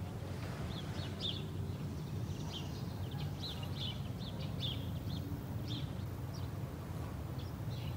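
Small songbirds chirping: many short, high calls scattered throughout, over a steady low outdoor rumble.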